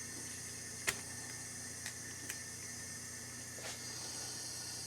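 A few light metallic clicks from a valve spring compressor being worked on a 2.8L V6 cylinder head, the loudest about a second in, over a steady faint hum and hiss.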